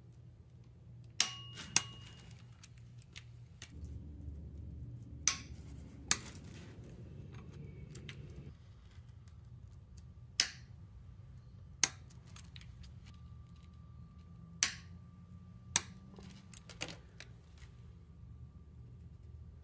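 Click-type torque wrench set to 90 Nm breaking over with sharp metallic clicks as the flywheel bolts reach torque, about eight clicks, mostly in pairs, some leaving a short ring.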